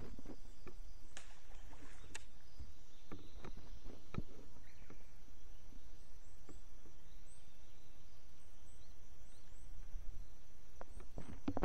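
Outdoor ambience on a small fishing boat: a steady low rumble of wind and water, with scattered light knocks and clicks of gear against the boat, and faint high bird chirps in the middle.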